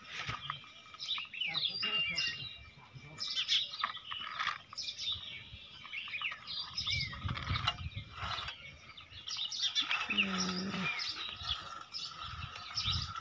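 Small birds chirping and twittering over and over, with scraping and clicking from a plastic toy backhoe loader being pushed by hand through sand. A short low voiced call comes about ten seconds in.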